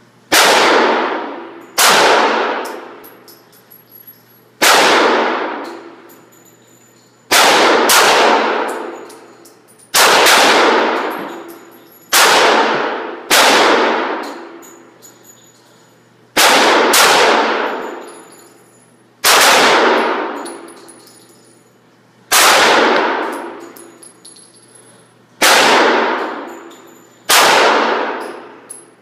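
Springfield XD 9mm pistol fired in slow, deliberate shots at an indoor range: about a dozen loud cracks one to three seconds apart, each ringing out with a long echo off the range walls.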